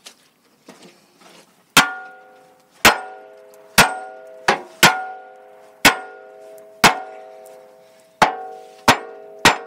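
Hammer striking the steel hydraulic cylinder mount of a Case backhoe about ten times, roughly once a second, starting about two seconds in. Each blow leaves a ringing metallic tone that fades slowly.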